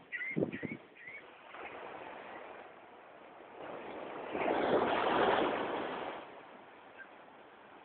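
Ocean surf: a steady wash with one wave breaking and rushing in about four seconds in, fading after about two seconds. A few short high chirps and low knocks in the first second.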